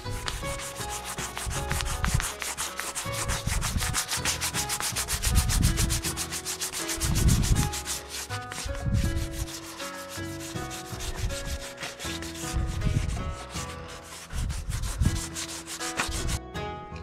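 Sanding sponge rubbed by hand over the painted surface of a motorcycle fairing in brisk back-and-forth strokes, scuffing the paint as part of preparing the panel.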